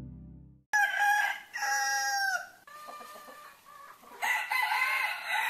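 Background music fades out, then roosters crow about four times in quick succession, the crows overlapping and several falling away at the end.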